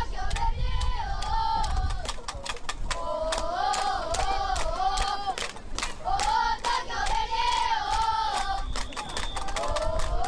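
Many children's voices chanting a cheer together in long, rising and falling phrases, with hand claps throughout.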